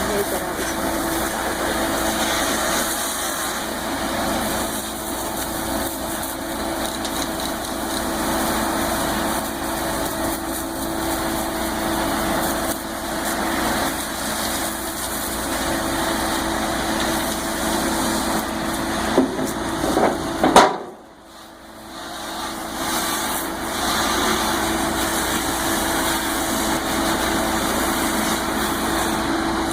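An engine running steadily at idle. It drops out abruptly for about a second roughly two-thirds of the way through, then comes back.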